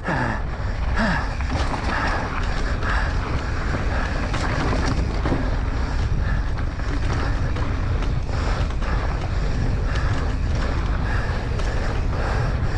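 Wind buffeting the microphone on a mountain bike ride down a rough trail, with the bike rattling and knocking over the ground. The rider's heavy breathing comes through about once a second.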